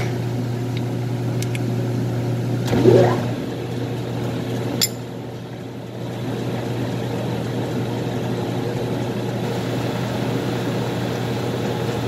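A lathe running with a steady low hum while it turns a reusable hydraulic hose fitting insert. About three seconds in there is a brief rising squeal, the loudest sound, and a sharp click near five seconds.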